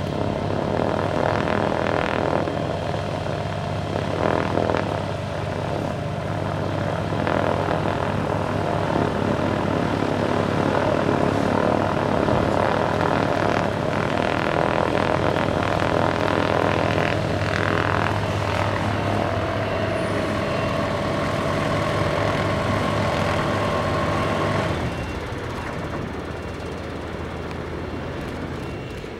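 Tecnam P2006T's twin Rotax 912 four-cylinder engines running with propellers turning, a steady drone. The sound drops noticeably about 25 seconds in.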